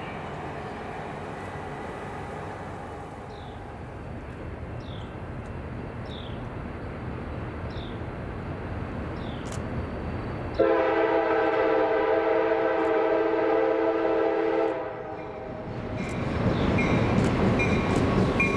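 Air horn of an approaching CSX EMD GP40-2 road-switcher. It gives one long blast of about four seconds, several pitches sounding together as a chord, starting suddenly about ten seconds in, and a second blast begins at the very end. Before the horn there is a steady low rumble of train movement. After the first blast the diesels' rumble grows louder as the locomotives draw near.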